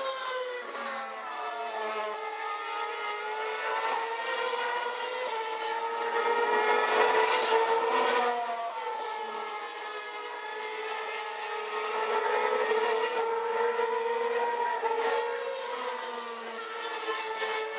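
Formula One cars' 2.4-litre V8 engines at high revs through a fast corner, several engine notes overlapping, their pitch sliding down and back up. Loudest about seven seconds in and again around twelve seconds.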